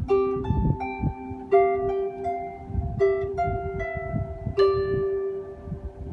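Solo harp playing a simple piece in single plucked notes, each left to ring. One middle note comes back again and again, with higher notes between.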